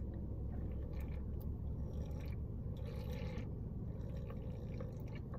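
Soft chewing and wet mouth sounds from eating chewy rice cakes and noodles, with scattered faint clicks and a brief smacking noise about three seconds in, over a steady low hum.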